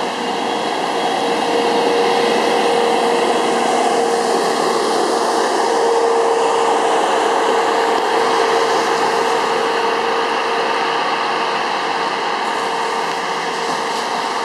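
Rail maintenance-of-way machines driving past close by on the track, their diesel engines running steadily with a held whine over the noise of wheels on rail.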